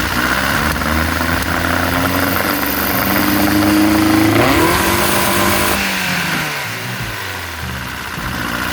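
Car engine accelerating, its pitch climbing for about four seconds, then easing off and falling about six seconds in.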